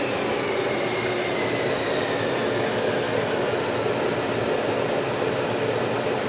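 Kent 10 hp bed mill's spindle drive running with a high whine that falls in pitch over the first few seconds as the spindle speed is turned down, over a steady machine hum.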